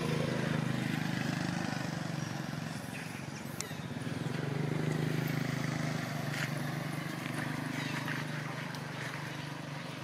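A motor vehicle's engine running nearby: a steady low drone that swells and eases in loudness, with a few faint clicks over it.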